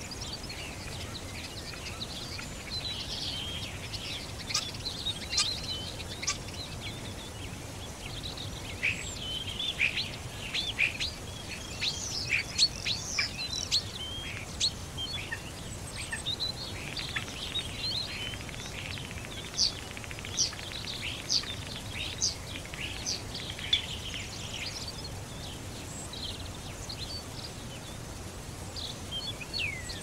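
A nightingale singing a busy, varied run of chirps, whistles and rapid trills over the steady rush of a waterfall.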